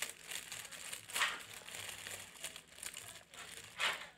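Clear plastic shrink-wrap film crinkling as it is gathered and twisted by hand while a pull bow is tied around it. The crackles come irregularly, with two louder crinkles about a second in and near the end.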